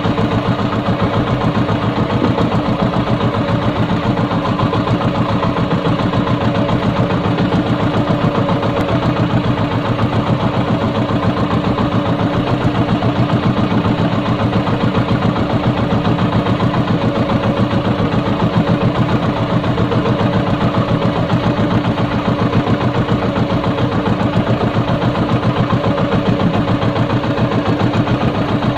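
Small outrigger fishing boat's engine running steadily with a fast, even chugging.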